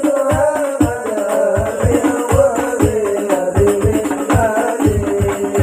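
Sholawat devotional singing by male voices, accompanied by hadrah percussion: rebana frame drums and a bass drum keeping a steady beat.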